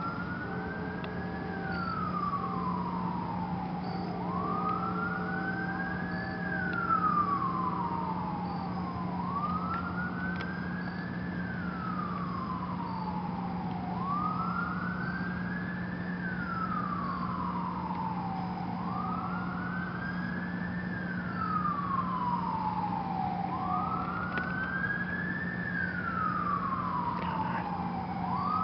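A siren wailing, its pitch rising and then falling in a slow, regular cycle about every four and a half seconds, over a steady low hum.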